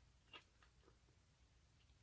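Baby kitten eating, faint chewing clicks: one sharper click about a third of a second in, then a few fainter ticks.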